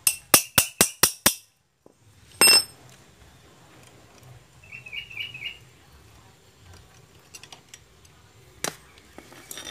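Hammer blows on a long steel drift punch set in a bore of a Honda Vario 125's aluminium engine crankcase: six quick ringing metal strikes in the first second and a half, one louder ringing strike about two and a half seconds in, and a single strike near the end.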